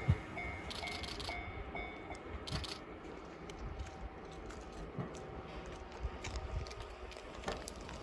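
Level-crossing warning bell ringing in an even, rapid beat, which stops about two seconds in once the train has cleared. Under it, the low running noise of a 115-series electric train fades as it draws away, with wind gusting on the microphone.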